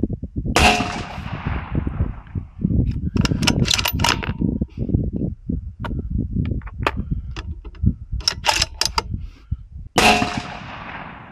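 Two shots from a 6BR bolt-action rifle about nine and a half seconds apart, each with a long echoing tail. Between them come clicks and metal clinks as the rifle is reloaded.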